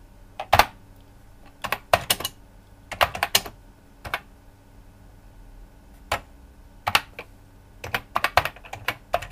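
Commodore 64 keyboard being typed on: sharp key clacks in short irregular bursts with pauses between them.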